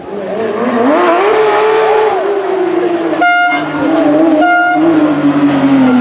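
Porsche 911 GT3 rally car's flat-six engine at high revs as it accelerates toward the camera. The pitch climbs over the first second or so, then holds high and eases gradually. Twice near the middle, a short steady horn-like tone cuts in.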